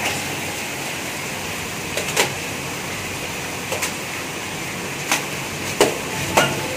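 Steady hiss of falling rain, with a handful of sharp taps and splashes scattered through it.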